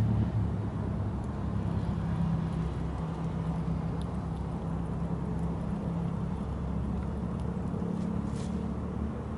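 A steady low engine hum with a pitched drone at the bottom, even in level throughout.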